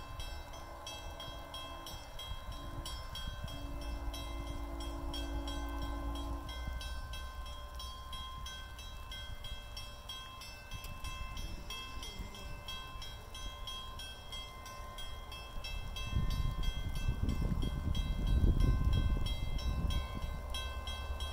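Level crossing bells ringing steadily as a train approaches. The train's horn sounds a short blast at the start and a longer blast of about three seconds a few seconds in. A low rumble from the train grows louder in the last five seconds.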